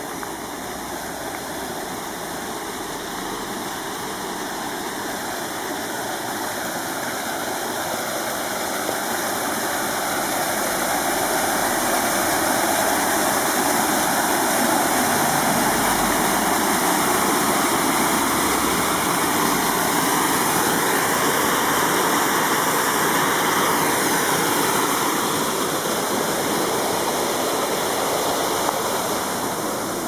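Water cascading over a concrete ledge into a small concrete-lined stream channel: a steady rush of falling water that grows louder toward the middle and eases off near the end.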